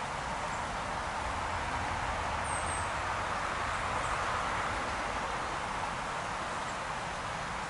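Small stream running over a gravel bed: a steady, even rushing and babbling of water, with a couple of faint high chirps about two and a half seconds in.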